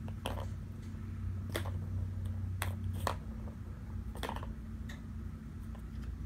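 Plastic balls in a cat's three-tier track ball toy clicking against the plastic as a cat paws them round, about five light clicks spread over a few seconds, over a steady low hum.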